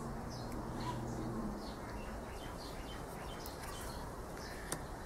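Small birds chirping in short, repeated calls over a steady background hiss, with a single light click near the end.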